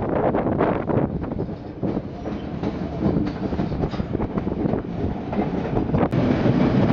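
White Pass railway train running along the track: a steady rumble with irregular clicks and clatter from the wheels and cars.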